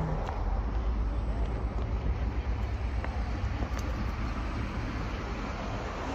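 Steady low rumble of car engines and street traffic.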